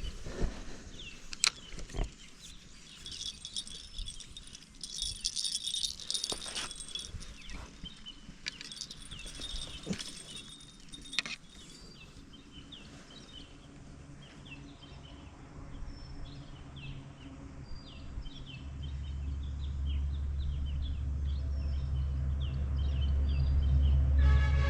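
A low engine hum that grows steadily louder over the second half, as a motor draws nearer. Earlier there are scattered clicks and rattles, and short high chirps repeat throughout.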